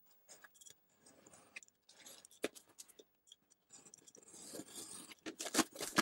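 Utility knife slitting the packing tape along a cardboard box's seam, with scraping and rubbing of the cardboard. It grows busier and louder toward the end as the cardboard flaps are pulled open.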